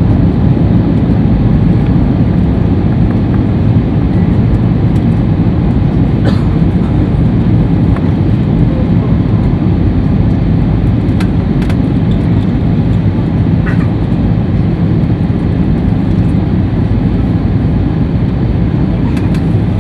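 Steady, loud cabin noise inside an Airbus A320 descending on approach: the low rumble of the engines and rushing airflow, unchanging throughout. A few faint clicks sound over it.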